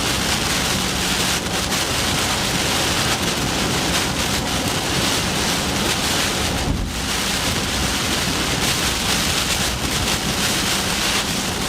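Steady wind noise rushing over the microphone, dipping briefly about seven seconds in.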